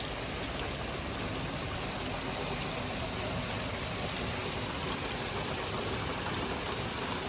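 Very heavy rain pouring down as a steady, dense hiss.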